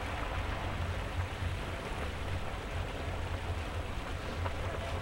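Wind buffeting the microphone: an uneven low rumble over a steady hiss.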